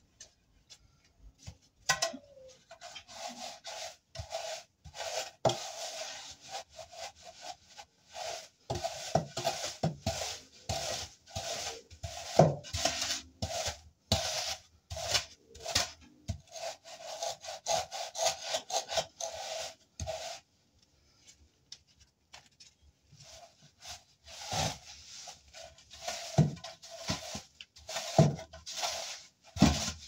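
Hand tool scraping and rubbing across fresh mortar in quick rasping strokes as the surface of a concrete base is smoothed against a wooden form board, with a few sharp knocks. The scraping stops for a few seconds about two-thirds of the way through, then starts again.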